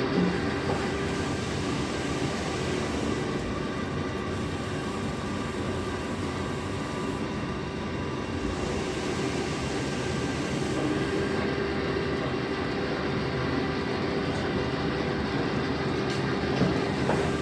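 20-litre PET jar washing machine running steadily, a continuous mechanical hum with a steady tone over a dense rumble, and a brief knock near the end.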